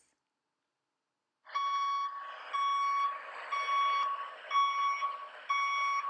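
Vehicle reversing-alarm beeping, added as a sound effect: five evenly spaced steady beeps, about one a second, over a faint hiss, starting about a second and a half in.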